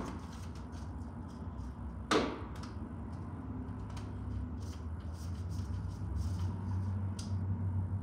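A whiteboard easel stand being set up by hand: one sharp knock with a short ring about two seconds in, then small clicks and rattles of handling, over a steady low hum.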